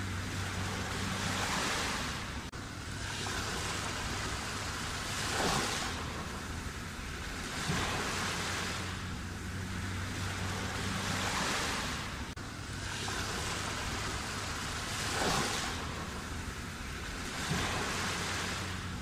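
Black Sea waves breaking in a steady cycle, a wave crashing every two to four seconds over a constant wash of surf.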